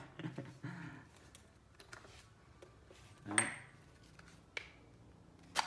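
Light clicks and knocks of a Makita TD135D cordless impact driver being handled and turned over in the hands, with a duller knock about three seconds in and a sharp click near the end.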